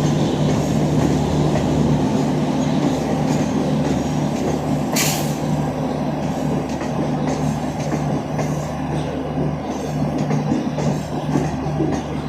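Trains running on the tracks: a steady rumble of wheels on rail under a steady hum, with a short burst of hiss about five seconds in.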